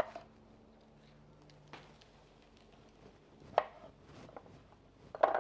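Kitchen knife cutting poblano chiles on a wooden cutting board: a few separate knocks of the blade on the board, the loudest about three and a half seconds in and near the end.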